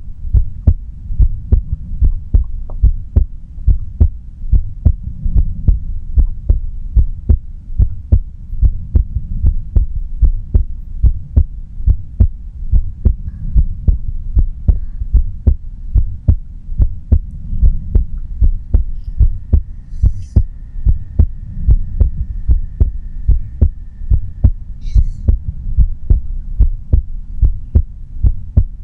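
A woman's heartbeat heard close up, beating steadily and evenly over a low continuous rumble.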